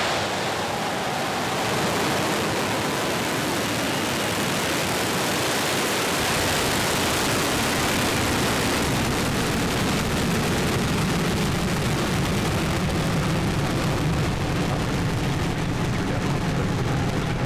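Falcon 9 rocket's nine Merlin engines firing at liftoff: a loud, steady rushing noise that grows deeper from about ten seconds in as the rocket climbs away.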